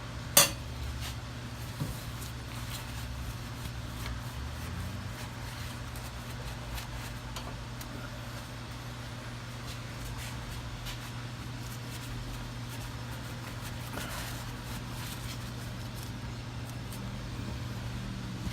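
Small metal parts clinking as they are handled: one sharp clink about half a second in, then a few faint light clicks, over a steady low hum.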